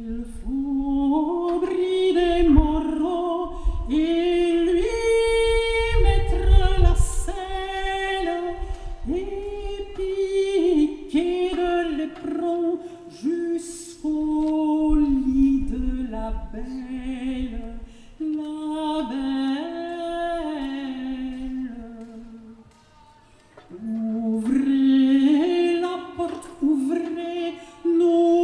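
A woman sings unaccompanied, a melody of held, gliding notes, with a brief pause for breath late on. Gusts of wind rumble on the microphone during the first third and again midway.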